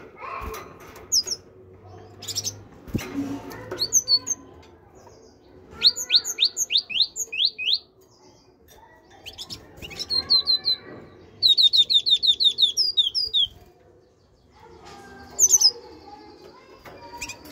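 Great tit singing and calling: several bursts of quick, sharp, repeated notes, the longest a run of about a dozen notes just past the middle, with single high chirps in between.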